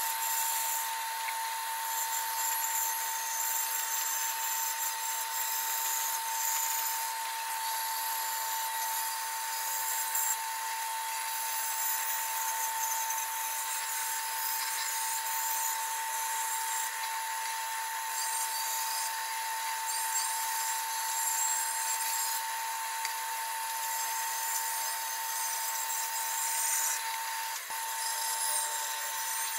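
Electric power tool running steadily on wood, with a constant whine and a rasping hiss from the work.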